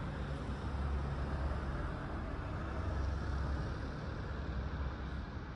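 Steady low rumble of a road vehicle with road noise, easing a little near the end.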